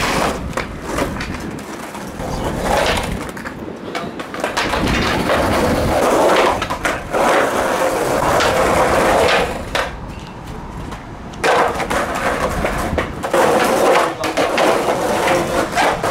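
Skateboard wheels rolling over concrete in several long runs, with sharp clacks of the board hitting the ground between them.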